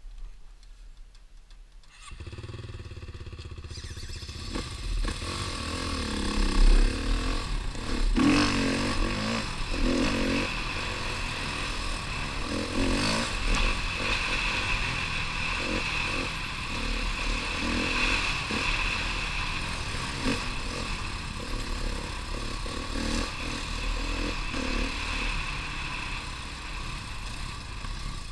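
Trail bike engine pulling away and revving up and down as the bike is ridden along a rough dirt track, louder from about two seconds in.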